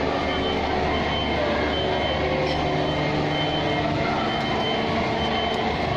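A high electronic beep repeating a little faster than once a second, like a vehicle's reversing alarm, over a steady low engine hum.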